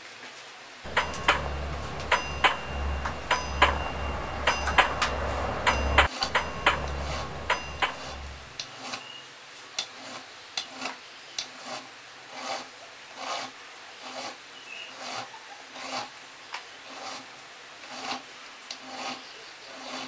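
Hand file rasping back and forth across the edge of a cast pewter buckle held in a small bench vise. The strokes are quick and louder for the first several seconds over a low hum, then become lighter and slower, about one every three-quarters of a second.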